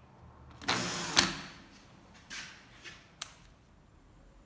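Short bursts of tool and handling noise at a window frame while pilot holes are drilled: a brief noisy burst about a second in that ends in a sharp click, then softer rustles and another sharp click.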